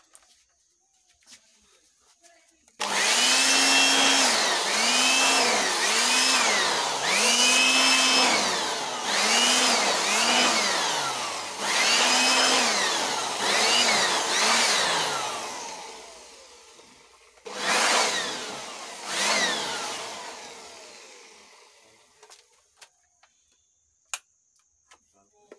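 Handheld electric air blower blowing dust out of a power amplifier's chassis. It starts suddenly a few seconds in and runs in a string of pulses, its motor whine rising and dipping about once a second as the trigger is squeezed and eased. It then spins down, gets two more short bursts, and winds down to a stop.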